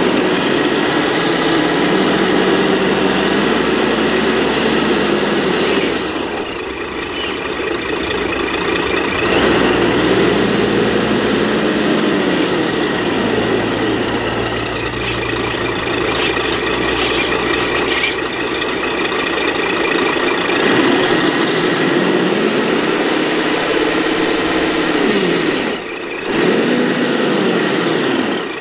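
Scale RC 8x8 military trucks' electronic diesel-truck sound units running, the engine note revving up and down with the throttle as the trucks crawl, over a steady high whine. The sound briefly drops a few seconds in and again near the end.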